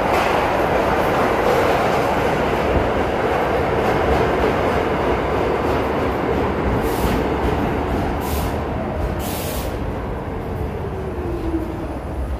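New York City subway train rumbling loudly along the track in an underground station, with a faint whine falling in pitch through the middle and three short hisses a little past halfway.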